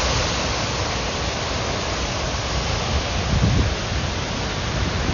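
Steady rushing of storm water, an even hiss with a low rumble underneath.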